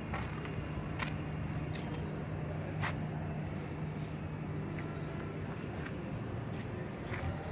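Tow truck engine idling with a steady low hum, with a few sharp clicks over it.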